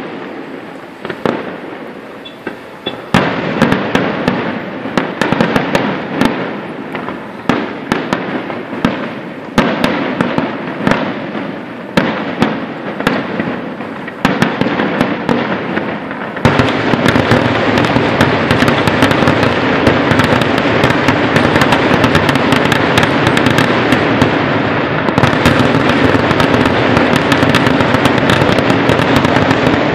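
Aerial fireworks display: shell bursts banging about once a second. About sixteen seconds in, they give way to a dense, continuous barrage of rapid bangs.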